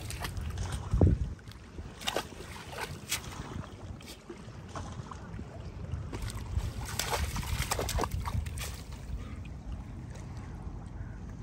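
Water sloshing and splashing among logs at the shoreline, with wind rumbling on the microphone and a single thump about a second in.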